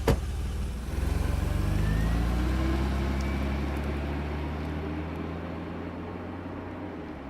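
A sharp knock, then a car engine revs up about a second in and the car pulls away, its sound slowly fading.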